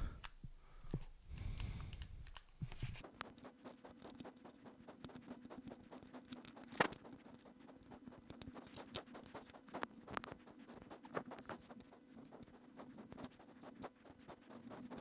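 Knife blade scraping and cutting through silicone potting in a small plastic battery case: faint, irregular scratching and small clicks, with one sharper click about seven seconds in. A low steady hum sits underneath from about two and a half seconds in.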